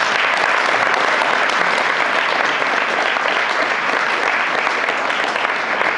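An audience applauding, many hands clapping together without a break.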